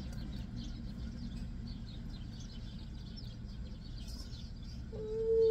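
Small birds chirping outside over a steady low background hum. Near the end a woman's voice starts a long, held "ooh".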